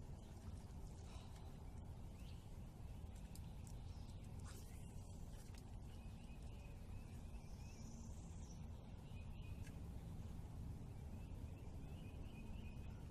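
Faint outdoor ambience: a steady low background rumble with small birds chirping faintly a few times, high-pitched, around the middle and again near the end.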